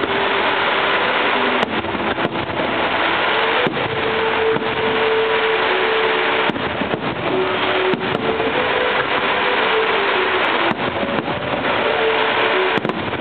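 Aerial fireworks shells bursting in quick succession: a dense, continuous crackle and rumble with sharp bangs scattered through it.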